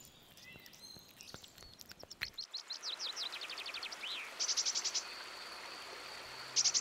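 Riverside wildlife ambience: about two and a half seconds in, a rapid trill of descending high chirps, then a single rising-and-falling chirp, short buzzy chirp bursts and a thin whistle held for about two seconds. All of it sits over a steady hiss of running water.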